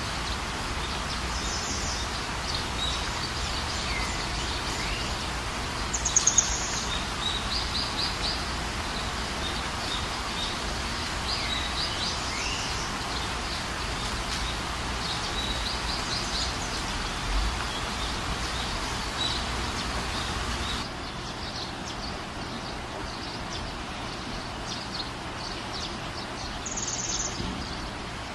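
Night chorus of high chirps and short trills over a steady hiss of ambient noise, with one loud trill about six seconds in; the hiss drops suddenly about three-quarters of the way through.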